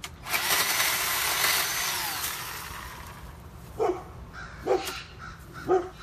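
Bauer 20V cordless electric chainsaw running and cutting through a small branch for about two seconds, then its motor whine falling as it spins down. From about four seconds in, a crow caws four times, about a second apart.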